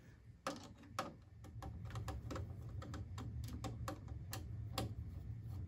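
Screwdriver undoing the small thumb screws on an iMac G3's video cable connector: a string of small, irregular clicks and ticks of metal on metal and plastic as the screws turn and the connector is handled.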